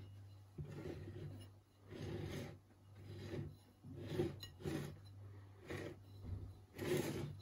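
Kitchen handling noises: a series of short rasping scrapes, about one every second, over a low steady hum.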